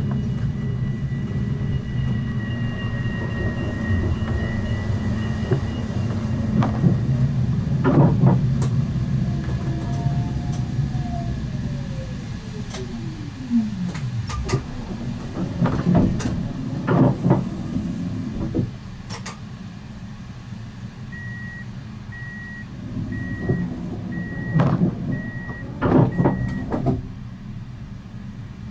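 Siemens Avenio tram's electric drive whining down in pitch as it brakes to a stop, with the running rumble fading. At the stop there are several knocks from the doors, and then a series of about seven short door warning beeps, roughly one a second.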